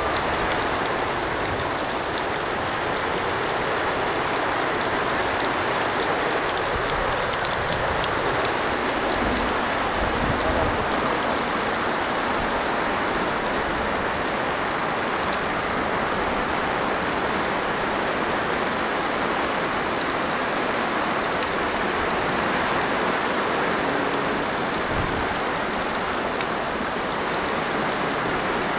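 Heavy rain pouring steadily onto flooded ground: a dense, even hiss with scattered sharper drop hits.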